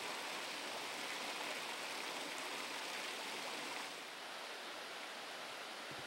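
Creek water running over rocks, a steady rushing hiss that turns a little softer about four seconds in.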